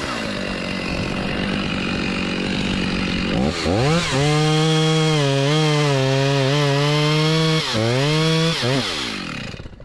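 Stihl two-stroke petrol chainsaw running, then revving up about three and a half seconds in and cutting through a sycamore trunk at full throttle, its pitch dipping slightly under load. It drops off briefly, revs again, then winds down and stops near the end, as the saw gives out.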